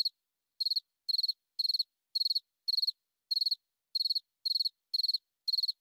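Cricket chirping: about ten short, high-pitched chirps at an even pace of roughly two a second, each a quick run of a few pulses.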